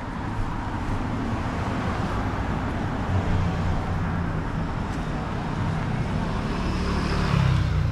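Street traffic: a car's engine and tyres build up and pass close by, loudest near the end, over a steady low road rumble.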